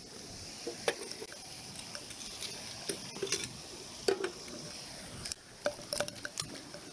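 Footsteps crunching and clicking irregularly on river pebbles and stones, over the steady rush of a stream.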